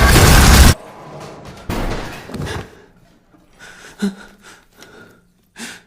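A loud, dense trailer sound-design swell that cuts off abruptly just under a second in, followed by quiet scattered knocks and breath-like noises.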